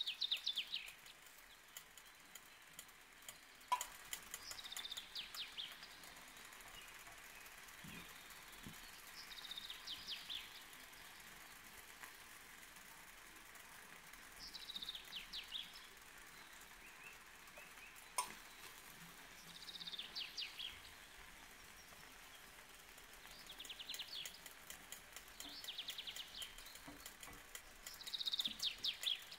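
A bird singing the same short phrase of quick, high, falling notes about every five seconds, over a faint steady hiss. A few sharp clicks stand out.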